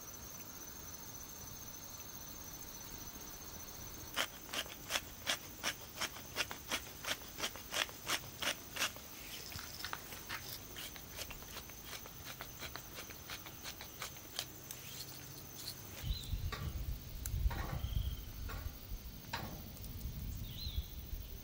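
Crickets or other insects trilling steadily in a high, pulsing tone. About four seconds in comes a run of sharp, regular taps, about three a second, lasting some five seconds. Near the end there are louder knocks and a low rumble as the frying pan is lifted off the charcoal grill's wire grate.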